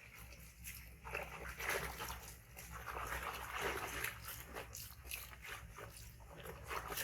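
A baby monkey making small, irregular vocal sounds over soft handling and rustling noises while it is being cleaned.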